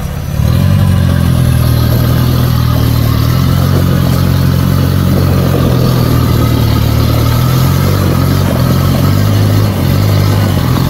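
Off-road Jeep's engine running loud and steady under load, picking up about half a second in and holding its pitch.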